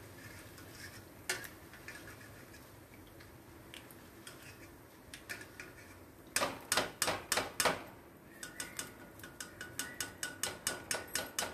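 Steel perforated frying ladle tapping against the rim of a stainless steel kadai to shake off oil: a few scattered clicks, then a quick run of loud metal strikes about six seconds in, then steady taps about four a second with the pan ringing.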